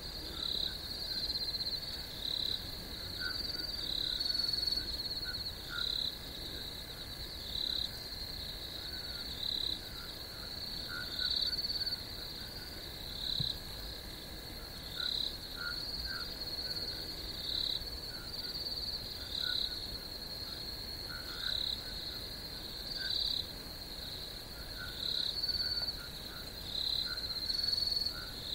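Pond ambience at night with crickets and frogs: a steady high cricket trill that swells into louder pulses every second or two, with short frog calls lower down.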